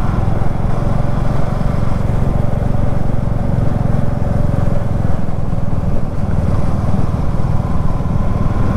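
Royal Enfield Meteor 350's single-cylinder engine running steadily while riding, heard with road and wind noise.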